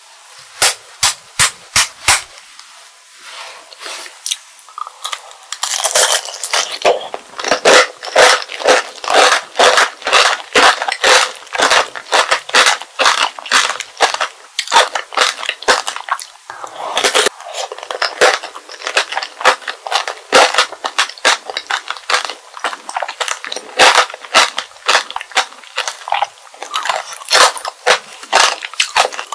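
The hard sugar shell of strawberry tanghulu cracking and crunching as it is bitten and chewed, close to the microphone: a few sharp clicks in the first two seconds, then from about six seconds in a dense, continuous crunching.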